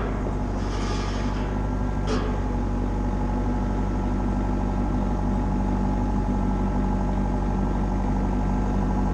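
Excavator's diesel engine running steadily while it lifts a steel floor frame into position, with one short knock about two seconds in.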